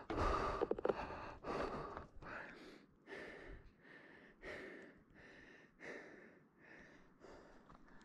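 Heavy, rapid breathing close to the microphone, about two breaths a second, loudest in the first second and softer later: panting from the effort of scrambling up steep rock.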